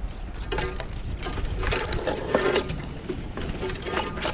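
A Jeep Gladiator driving off road, with rapid clicking and rattling over the low rumble of the drive, busiest in the middle.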